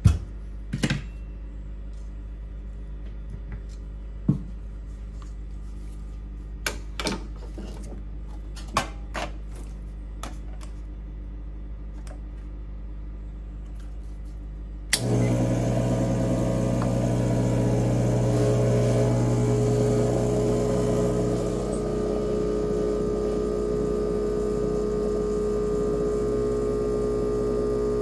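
A few light clicks and knocks as the cup, scale and timer are handled. About fifteen seconds in, the Rancilio Silvia's vibratory pump switches on with a sudden loud, steady buzz as the espresso shot is pulled. The buzz eases a little about seven seconds later and carries on.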